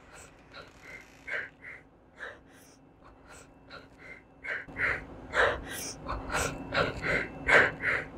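A girl sobbing: short gasping breaths and whimpers in quick, irregular succession, growing louder about halfway through.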